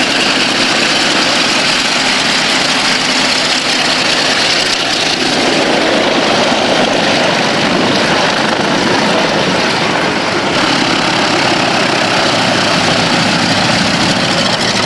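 Piston propeller aircraft engine running steadily at low power as the plane taxis.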